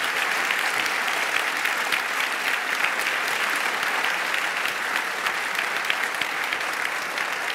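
Large audience applauding: dense, steady clapping that eases slightly toward the end.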